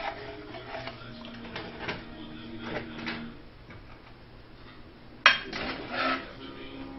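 A metal utensil scrapes and clinks against a metal Dutch oven and a ceramic bowl as pieces of braised chicken adobo are served onto rice. There are scattered light clinks, then a sharp clatter about five seconds in, followed by more rattling.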